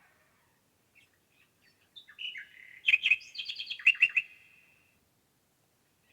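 A woodland songbird sings one quick phrase of about three seconds, a run of short high notes and trills that starts about two seconds in.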